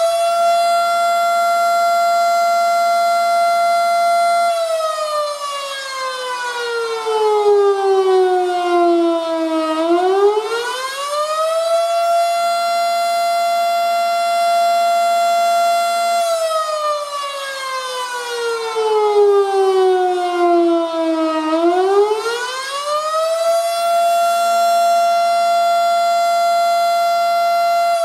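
Federal Model 5 electro-mechanical outdoor warning siren sounding the attack signal. Its single tone climbs quickly to full pitch, holds there for about five seconds, then glides down for about five seconds before climbing again, repeating about every twelve seconds.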